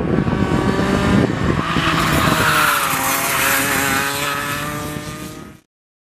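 A racing kart's engine running hard on track. Its pitch dips briefly about halfway through, as if slowing for a corner, then holds steady while fading, and the sound cuts off suddenly near the end.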